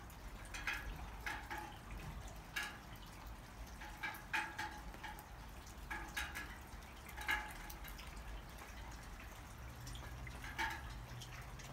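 Water dripping after a hail shower: single drops falling at irregular intervals, roughly one a second, each a short plink, over a faint steady low rumble.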